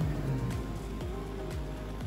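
Background music with a steady beat of deep kick drums, about two a second.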